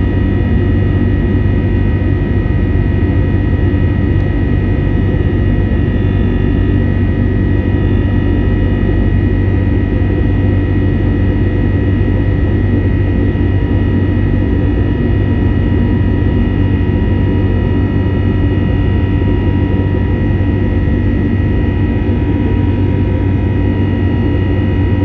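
Jet airliner engines running steadily: a constant low rumble with a steady high-pitched whine over it.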